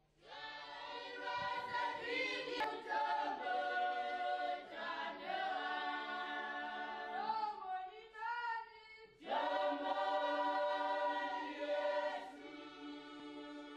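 A congregation singing a hymn in held, sustained notes, with a short break about eight seconds in before the next phrase.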